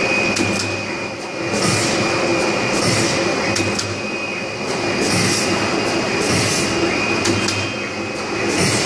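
Roll-to-roll hole punching and cutting machine running: a steady mechanical drone with a thin high whine, a burst of hiss every few seconds, and sharp clicks in between.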